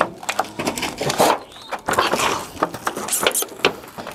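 Rusty corrugated metal roof sheets popping and creaking under a person's hands and feet as he crawls across them: an irregular run of sharp clicks and knocks.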